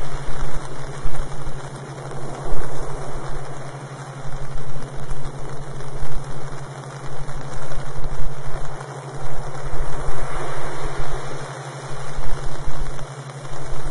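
Subliminal audio track: a steady wash of noise over a constant low hum, swelling and dipping irregularly in loudness.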